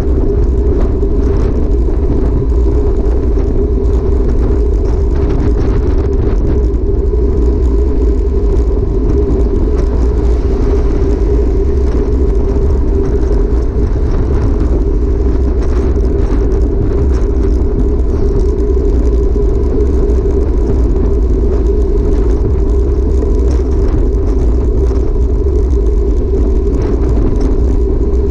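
Steady wind rush on a bicycle-mounted camera's microphone during a group road ride at speed, with the rolling noise of road-bike tyres on asphalt, loud and unbroken.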